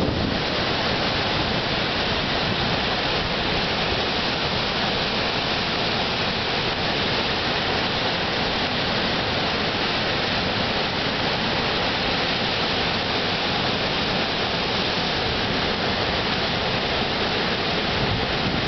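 Huilo Huilo waterfall on the Fuy River plunging into its gorge: a steady, unbroken rush of falling water.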